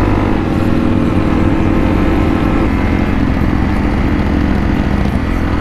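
Motorcycle engine running steadily at riding speed, a continuous drone whose note eases slightly about halfway through.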